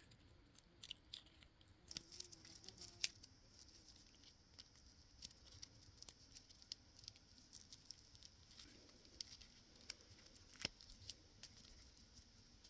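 Faint crinkling and small scattered ticks of masking tape being picked and peeled off a freshly painted PVC antenna base.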